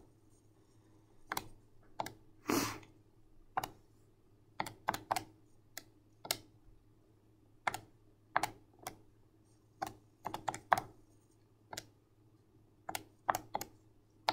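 Keys of a TI-84 Plus Silver Edition graphing calculator being pressed as a calculation is entered: about twenty short, sharp clicks at an uneven pace, some single and some in quick pairs or threes.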